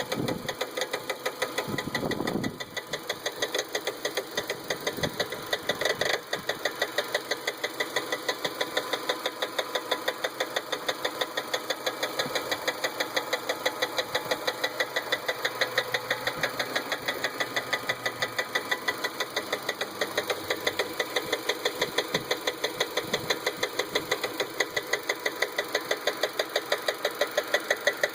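2003 Hyundai Elantra's engine running with a fast, regular ticking knock that keeps an even beat. It is the weird noise the owner cannot identify.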